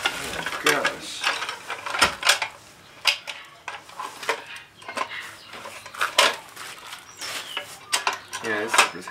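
A plastic radial arm saw blade guard being handled and lifted out of a cardboard box packed with bubble wrap: irregular clicks, rattles and crinkling.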